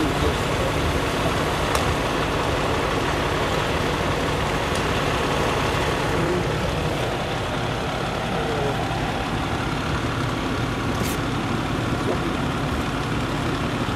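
Fire engine idling steadily, with a few faint clicks over it.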